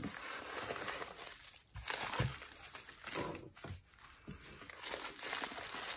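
Yellow padded kraft bubble mailer being opened and a bubble-wrapped spiral planner pulled out of it: crinkling of paper and plastic wrap in several bursts with short pauses.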